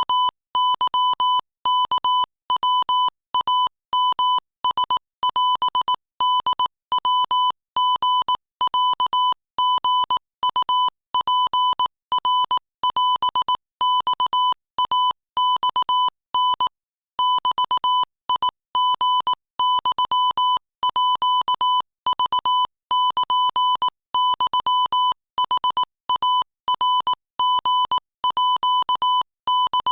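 Morse code sent at 22 words per minute as a single steady-pitched beep near 1 kHz, keyed on and off in a fast run of dots and dashes, with a brief pause about 17 seconds in.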